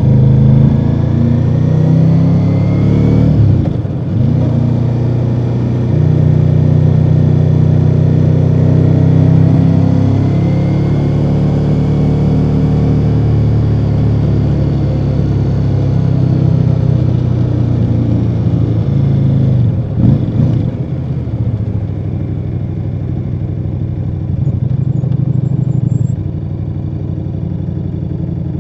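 Ducati Multistrada V4 Rally's 1158 cc V4 engine through its stock exhaust, running under way. Its pitch rises as it accelerates in the first few seconds, with short dips about four seconds in and again near twenty seconds, and it settles a little quieter near the end.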